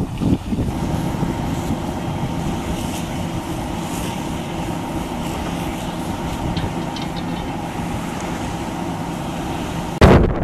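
Steady engine-and-pump drone of fire engines pumping water, mixed with the hiss of hose streams spraying onto a garbage pile, and wind rumbling on the microphone. A sudden loud bump comes near the end.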